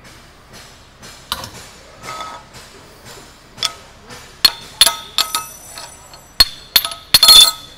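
Ball-peen hammer tapping a partly formed sheet-aluminium part down onto a metal forming jig: a run of sharp metallic strikes at uneven spacing, each with a short bright ring. The blows start light and get harder, with a quick cluster of the loudest near the end.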